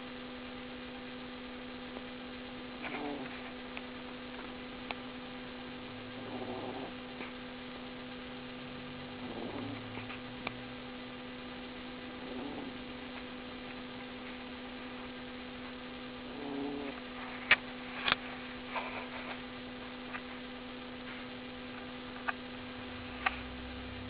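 Snoring, one soft snore about every three seconds, over a steady electrical hum. A few sharp clicks, louder than the snores, come in the second half.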